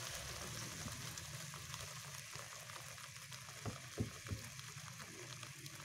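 Tomato-garlic pizza sauce cooking in oil in a pan on low heat, a steady sizzle. A few light knocks come about three and a half to four and a half seconds in.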